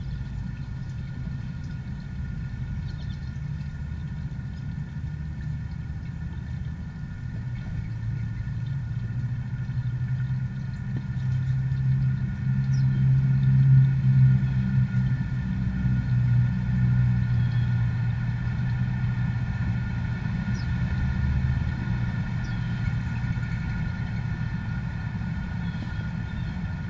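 Low engine rumble of a vehicle, swelling to its loudest in the middle and then easing off, as if it runs or passes close by. A few faint chirps sound above it.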